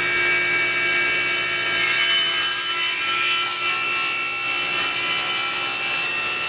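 Table saw running steadily at speed, its motor and spinning blade making a constant whine, together with a dust collector running.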